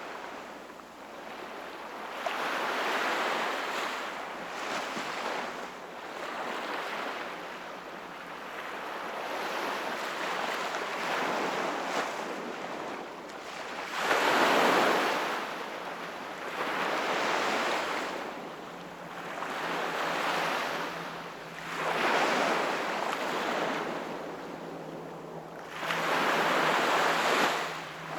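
Sea waves breaking and washing in one after another, a surge about every two to three seconds. The biggest come about halfway through and near the end.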